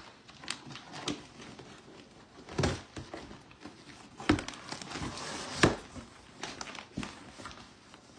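Cardboard shipping box being opened and rummaged by hand: cardboard flaps and packing inside rustling and crinkling, with three louder knocks of cardboard.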